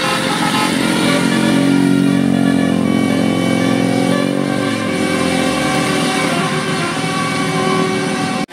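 Bus engine accelerating as the bus drives past, its pitch dropping about five seconds in and then settling to a lower steady hum.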